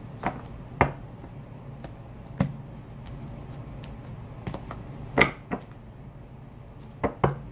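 Tarot cards being handled and shuffled: about seven sharp, irregular snaps and taps of the deck over a low steady hum.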